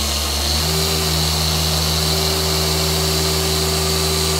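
Rupes long-throw dual-action polisher with a yellow foam pad running steadily on car paint, its tone shifting slightly just under a second in. The pad keeps plenty of rotation, with no stalling.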